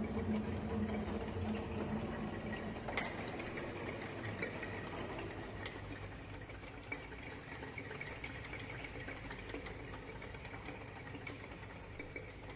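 Faint steady hum and hiss that slowly fades, with a single click about three seconds in.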